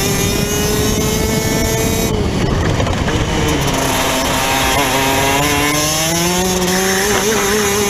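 Rotax DD2 kart's 125 cc two-stroke engine at racing speed. The revs climb, then drop sharply about two seconds in as the kart slows for a corner. They stay low through the turn, then climb steadily again on the way out.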